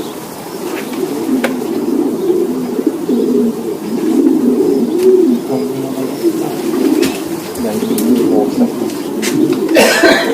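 Racing pigeons cooing together in the loft, a steady overlapping warble, with a few sharp clicks and a brief clatter near the end.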